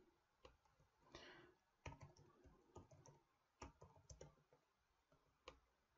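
Faint typing on a computer keyboard: a few scattered, irregular keystrokes.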